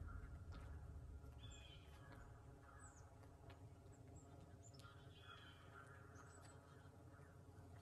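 Near silence: quiet outdoor ambience with a few faint, short bird chirps.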